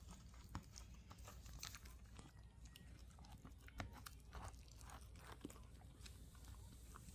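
A dachshund puppy crunching and chewing dry kibble from a bowl, a quick, irregular run of small crunches and clicks.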